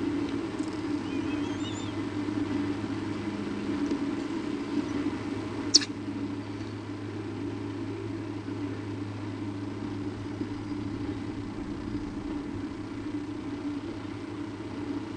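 Steady low rumble with a few faint wavering chirps about a second and a half in, and one short sharp click about six seconds in.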